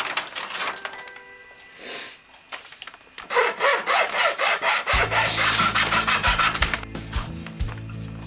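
Hacksaw cutting across a wooden broomstick with quick back-and-forth strokes, starting a few seconds in and stopping near the end once the cut is through. A sheet of paper rustles at the start, and background music comes in partway through.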